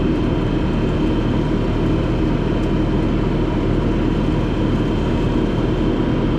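Bobcat T650 compact track loader's diesel engine running at a steady speed, a continuous low hum with a steady whine above it.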